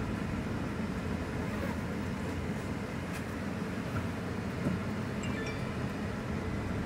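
Steady low rumble of car engine and tyre noise heard inside the cabin while driving slowly in traffic, with a couple of faint short high beeps about five seconds in.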